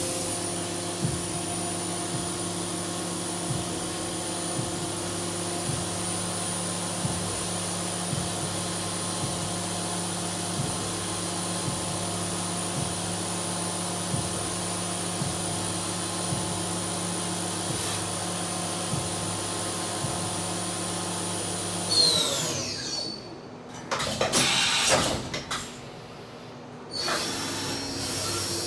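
Akira Seiki SV1050 vertical machining center's spindle running at steady high speed with a high whine and a light regular tick about every two-thirds of a second. About three-quarters of the way through it spins down with a falling whine. A few short bursts of noise follow, and near the end it runs up again at a lower, steady pitch.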